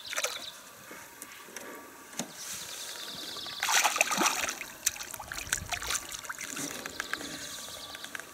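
A small hooked perch splashing and thrashing at the water's surface as it is reeled in to the side of a boat. The splashing is loudest about three and a half to four and a half seconds in, with smaller splashes after it.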